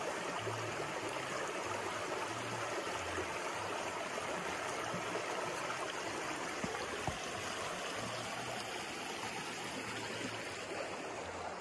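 Shallow river running over and around stones and boulders: a steady babbling rush of water.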